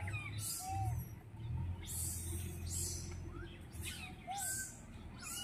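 Two short animal calls that rise and fall in pitch, one near the start and another about four seconds in. Under them runs a low steady hum, broken by short bursts of high hiss.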